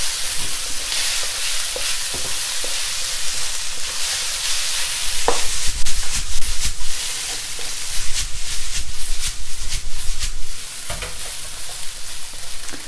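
Fried rice sizzling in a hot wok as it is stirred and turned with a wooden spatula, near the end of cooking. A steady frying hiss runs throughout, and from about halfway in comes a quick run of sharp scrapes and knocks of the spatula against the wok.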